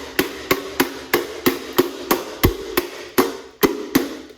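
Repeated hammer-like knocks, about three a second and a dozen or so in all, as the subwoofer's power supply is used as a makeshift hammer to tap a part out of the control head unit. Each knock rings briefly, and the part does not come loose.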